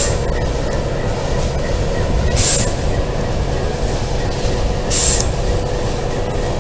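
Alco RS8 diesel locomotive hauling a ballast train at low speed: a steady engine and rolling rumble, cut by short high-pitched wheel squeals three times, about every two and a half seconds.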